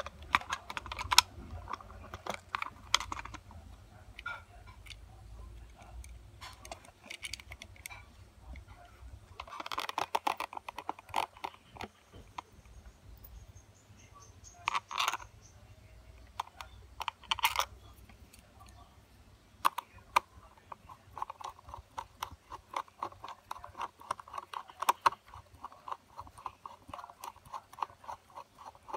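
Small knocks and clicks as a white plastic three-pin switched wall socket is handled and pushed back into place. From about twenty seconds in, a screwdriver turns the faceplate's fixing screws in, a fast run of small clicks.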